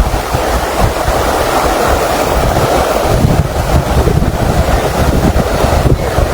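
Wind buffeting the microphone in a heavy low rumble over a steady rush of flowing floodwater.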